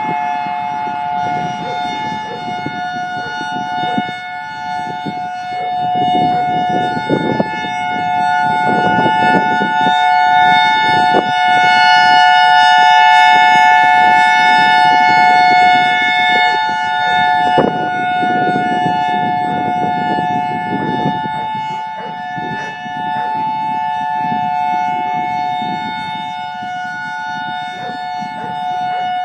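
EOWS-612 electronic outdoor warning siren sounding a steady two-tone chord as its horn array rotates, swelling louder as the horns face the listener and then fading. Several of its drivers are blown, which leaves it unusually quiet for an outdoor siren.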